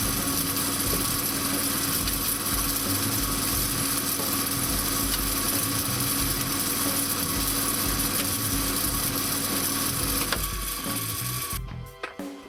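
Pickup coil-winding machine running steadily, winding a guitar pickup coil: a constant motor hum under an even hiss. It stops near the end.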